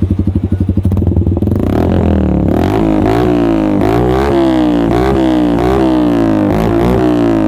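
Motorcycle engine with an SC Project short aftermarket exhaust, idling for about a second and a half and then revved in quick repeated throttle blips, the pitch rising and falling each time. A slightly loud exhaust note with little bass.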